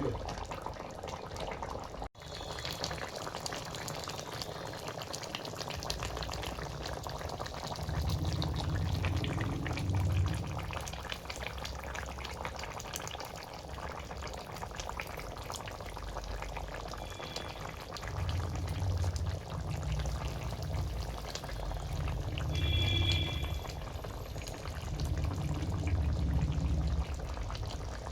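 Chicken curry bubbling and sizzling in a pan after water has been added to the sautéed masala, a steady hiss with low rumbling that swells and fades a few times.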